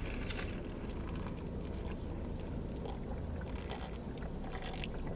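A person chewing chicken wings, with faint wet mouth clicks that become more frequent near the end, over a steady low rumble.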